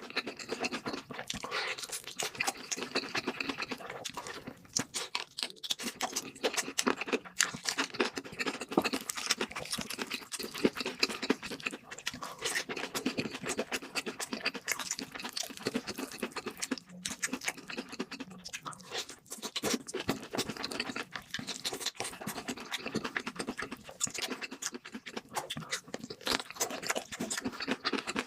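Close-miked chewing and crunching of crispy fried food, a steady run of crackles and wet mouth sounds.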